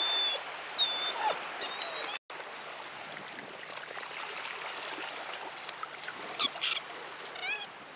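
Shallow surf washing and splashing as a dog wades and paws at a ball in the water, with a short high rising whine from the dog near the end. The sound cuts out completely for a moment about two seconds in.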